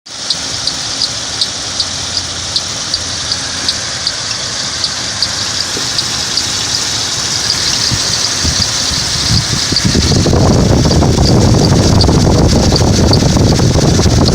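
Ford Explorer 4.0L V6 engine running with a regular high-pitched chirp, about two and a half a second. The chirp came from the gear behind the harmonic balancer having been installed upside down during a timing chain job. About ten seconds in, a louder rushing, rumbling noise comes in over it.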